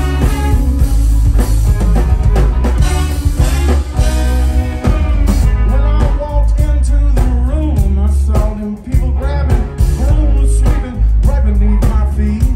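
Live rock band playing through stage speakers: drum kit, electric bass and electric guitars, with a saxophone and trombone horn section.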